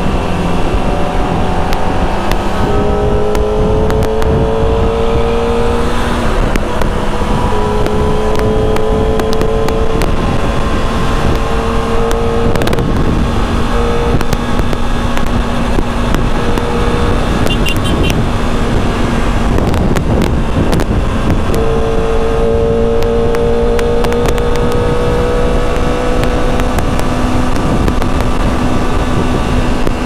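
Kawasaki ZX-25R's 250 cc inline-four running through its stock exhaust while riding: the engine note climbs slowly in pitch and falls back several times as the throttle is rolled off and gears change, over a steady rush of wind and road noise.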